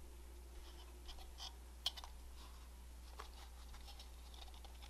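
Faint handling noise: small clicks and rustles from a spool of nylon ribbon being held up and turned over in the hands, with one sharper click about two seconds in, over a low steady hum.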